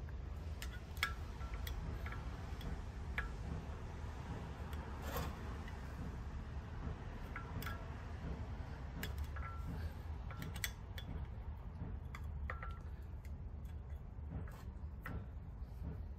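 Scattered small metal clicks and taps, some with a brief ring, of a pick tool and fingers working in the piston bores of a monoblock racing brake caliper to remove its failed piston seals, over a steady low hum.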